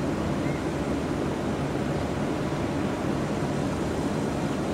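Distant airliner jet engines across an airfield: a steady low rumble with no change in level.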